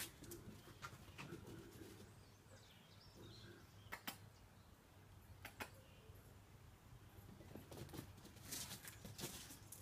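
Near-quiet ambience with scattered sharp taps and scuffs of cats' paws skidding on a tiled floor: a few in the first second and a half, single taps about four and five and a half seconds in, and a cluster near the end.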